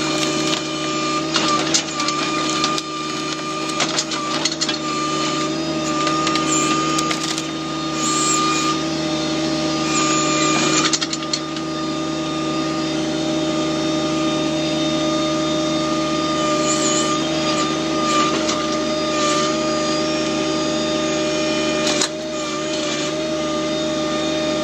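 John Deere 1026R compact tractor's three-cylinder diesel engine running steadily while working the 260 backhoe, its pitch sagging briefly under load now and then. Scattered cracks and knocks of barn wood being broken and pulled apart.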